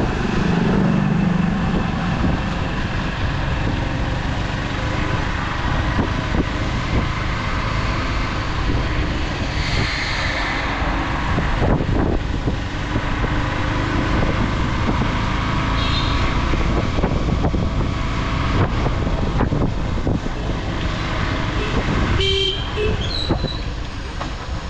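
Motorcycle engine running while riding slowly, with steady wind noise on the microphone. A horn toots briefly about ten seconds in.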